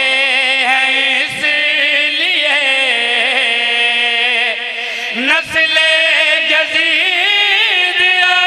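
A man chanting a verse in a long, drawn-out melodic line, holding wavering notes: the sung style of a zakir's recitation. About five seconds in the line breaks briefly and starts again with a rising glide.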